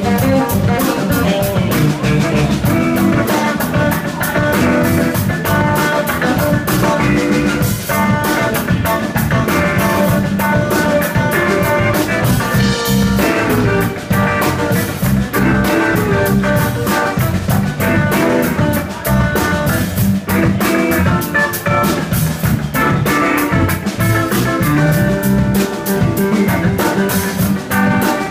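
Live blues-rock band playing: two electric guitars, electric bass and a drum kit keeping a steady beat on the cymbals.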